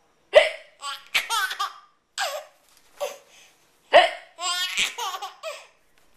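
A woman hiccuping several times, each sharp hiccup set off by a baby's high-pitched laughter.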